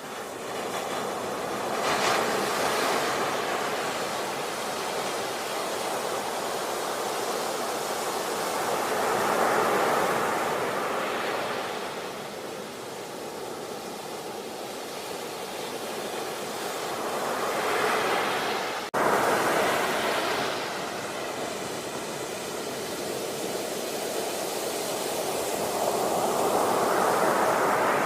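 Sea waves breaking on a shore, a steady wash of surf that swells and subsides about every eight seconds.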